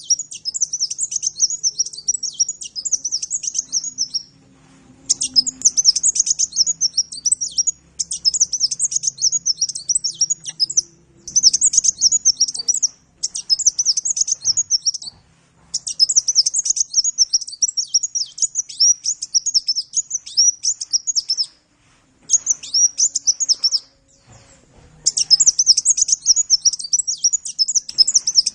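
A sunbird singing a fast, high-pitched twittering song in long runs of rapid notes, broken by short pauses.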